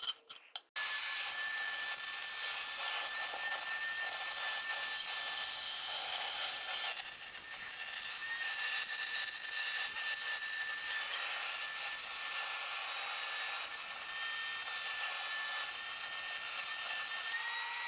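A small power tool running steadily with a thin high whine over a dense scratchy hiss of abrasive work, starting abruptly just under a second in.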